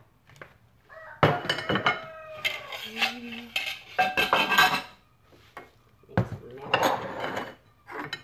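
Plates and utensils clattering and clinking on a kitchen counter, with a run of knocks and ringing from about a second in and another burst past six seconds.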